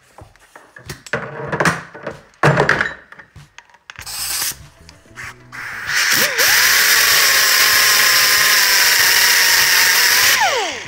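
Angle grinder spinning up about six seconds in and running at a steady high whine with a loud grinding hiss as its disc grinds a broken easy-out flush in a steel hydraulic valve block. It winds down just before the end. Before it come a few irregular knocks and handling sounds.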